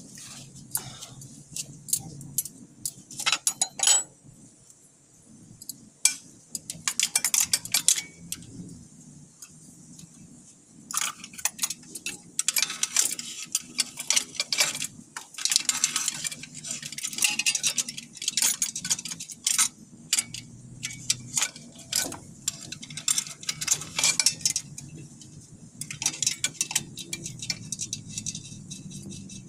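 Metal spanner and steel fuel-line fittings clinking and tapping against the engine in irregular clusters of sharp clicks, with a low steady hum underneath, during diesel injector replacement work.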